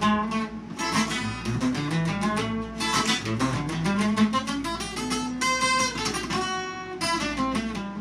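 Acoustic guitar played alone, picking quick melodic runs of single notes that climb and fall: ornamental fills (adornos) being worked out for a song.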